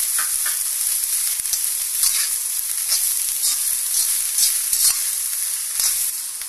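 Vegetables sizzling in hot oil in an iron kadhai on high heat, stir-fried with a spatula that scrapes and tosses them against the pan in repeated, irregular strokes.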